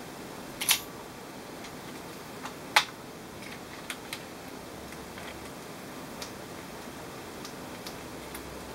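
Scattered small clicks and taps of hard plastic and metal parts as a laptop's motherboard and chassis are handled during disassembly: two sharper clicks in the first three seconds, then a few fainter ones.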